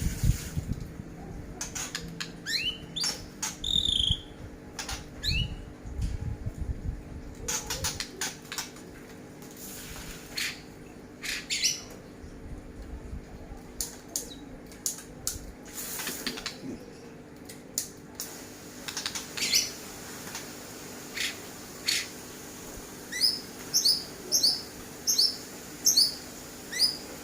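A songbird calling in short, sharp chirps, scattered at first and then in a regular series of about two notes a second near the end.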